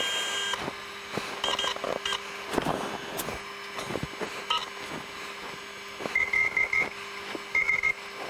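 Short electronic beeps from a handheld wireless CNC pendant as its buttons are pressed to jog the router gantry: a longer beep at the start, a few single beeps, then a quick run of four lower beeps and a pair near the end. A steady low hum and faint clicks run underneath.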